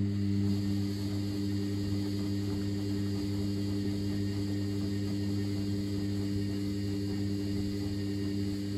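Front-loading washing machine's drum motor turning the drum in the main wash of a 90° boil wash. It makes a steady electric hum with a faint high whine over it.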